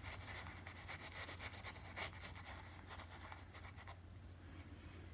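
Faint scratchy strokes of a paintbrush on the painting, thinning out after about four seconds, over a low steady hum.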